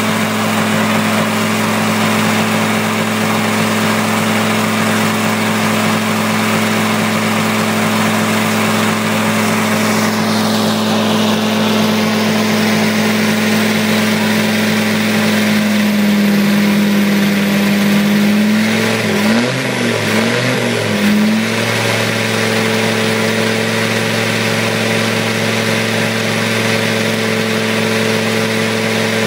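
Land Rover Defender 90 engine running at steady held revs. About two-thirds of the way through, the revs waver up and down for a couple of seconds, then settle again at a slightly different pitch, as the engine is run hard to clear out carbon.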